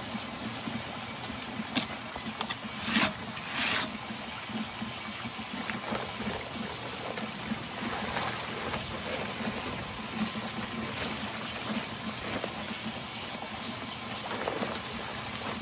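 Water spraying from a pistol-grip garden hose nozzle onto wet sand in a sluice processor's screen tray: a steady hiss and patter over a low hum, with a few louder bursts about three seconds in.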